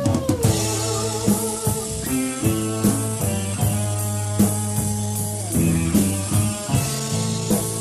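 Rock band recording: guitar and bass notes over a drum kit keeping a steady cymbal beat, with a long held note sliding down at the start.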